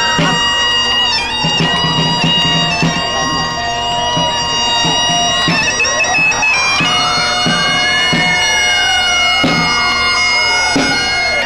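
Great Highland bagpipes playing a marching tune over their steady drones, with a drum beating in time. A separate wailing tone rises and falls slowly several times behind them, mostly in the second half.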